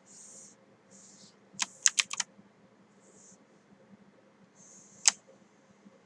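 Computer keyboard keys clicking: a quick run of about five keystrokes a couple of seconds in, then a single sharp keystroke about five seconds in.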